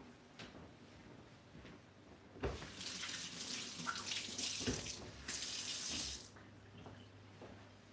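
Tap water running into a sink while hands are washed, in two spells: about two and a half seconds of running water starting a couple of seconds in, a brief break, then about another second.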